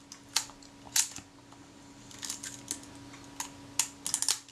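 Small, sharp mechanical clicks from the Kodak Retina IIC's newly refitted shutter and lens assembly as it is handled and worked: two crisp clicks in the first second, then a run of lighter ticks that bunch together near the end.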